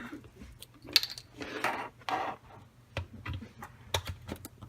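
Handling of a plastic power adapter brick and its detachable power cable as the cable is plugged in: several sharp plastic clicks and knocks with short rustles between them, the loudest click about a second in.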